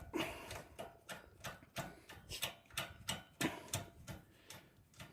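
Irregular sharp clicks and taps, about three or four a second, from hand work on a portable generator's frame as its foot is fitted and fastened.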